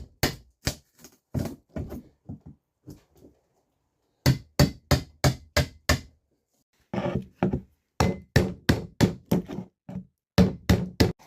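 Hammer blows on wood, quick runs of sharp strikes about three a second, in several bursts with short pauses between.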